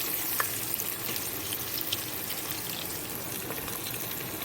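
Chopped garlic and onion frying in butter in a pot: a steady sizzle with small crackles, and one light tap about half a second in.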